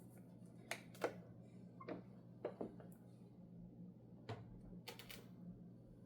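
Scattered sharp mechanical clicks and clacks from a 1969 Adler J5 manual typewriter being worked slowly, about eight strokes at uneven intervals, some in quick pairs. A low steady hum runs underneath.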